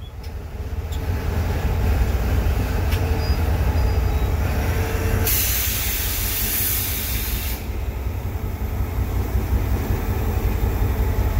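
EMD 8-645 two-stroke diesel engine of an EMD GL18B locomotive, heard from inside the cab, running under load as the locomotive moves, its rumble rising over the first two seconds and then holding steady. About five seconds in, a loud burst of air hiss lasts about two seconds.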